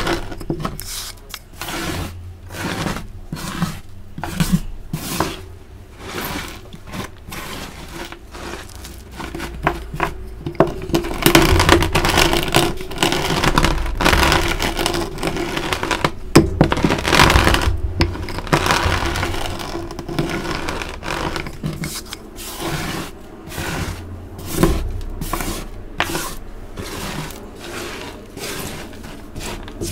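Crushed pieces of dyed gym chalk crunching and crackling under a roller pushed back and forth over them, in repeated uneven strokes that are loudest in the middle.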